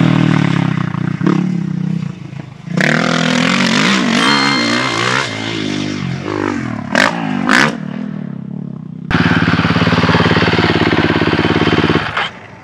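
Motocross dirt bike engine revving through a corner, its pitch rising and falling with the throttle. About nine seconds in it switches abruptly to a steady high-revving run.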